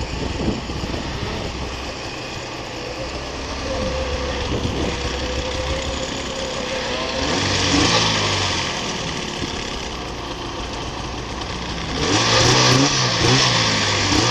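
Snowmobile engine running under way, with the throttle opened up in two louder surges, about eight seconds in and again from about twelve seconds.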